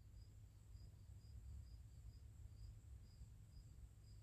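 Near silence: faint room tone with a low hum and a faint high pip repeating about two to three times a second.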